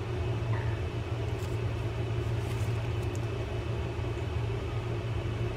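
Steady low background hum, with a few faint light clicks of small metal reel parts being fitted together by hand.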